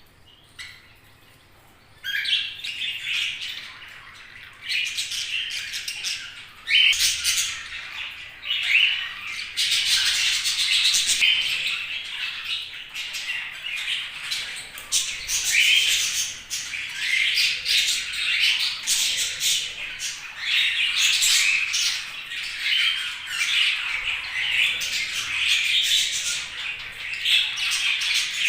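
Several budgerigars chirping and squawking in overlapping chatter. It starts after a short lull of about two seconds and becomes dense and continuous from about seven seconds in.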